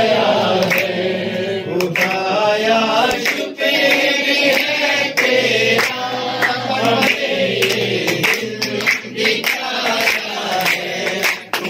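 A group of men and women singing together.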